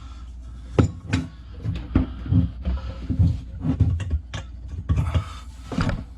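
Knocks and clatter of plumbing drain parts being handled and fitted, several sharp knocks among irregular low thuds over a steady low hum.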